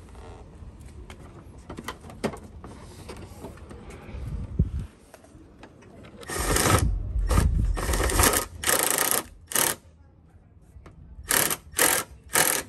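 Hand ratchet clicking in several short runs while fender bolts are tightened, after a few seconds of light knocks and clicks from handling the parts.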